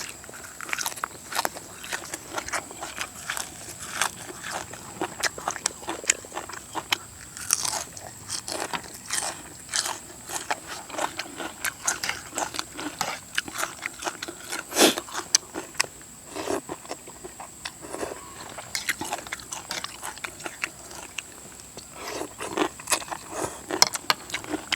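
A person eating close to the microphone: irregular crunching bites and chewing, many small crisp clicks in quick succession.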